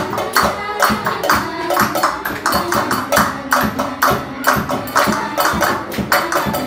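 Students playing homemade percussion (a glass bottle, a tin can and hand-held shakers or clappers), keeping a quick, steady beat, with voices holding sung notes underneath.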